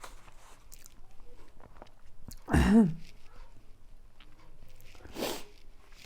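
A person eating spicy noodles, with faint chewing and slurping clicks. About two and a half seconds in there is a short, loud vocal sound with a rising-then-falling pitch, and just after five seconds a breathy noise.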